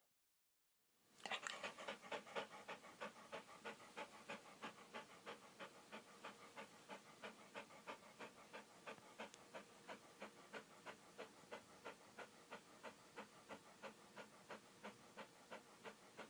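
A dog panting in quick, even breaths, about four a second, starting after a second of silence.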